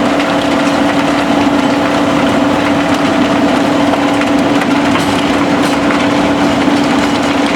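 Mobile impact crusher and diesel machinery running steadily while crushing concrete: a constant engine hum with a steady tone under a dense mechanical din, with faint clatter of rubble.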